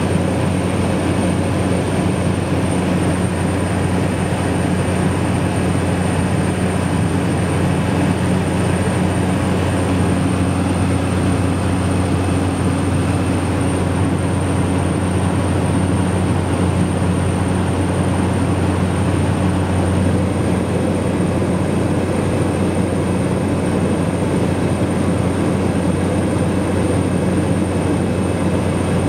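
Steady in-flight drone of a de Havilland Otter floatplane's engine and propeller, heard from inside the cabin: a constant low hum with a thin high whine above it.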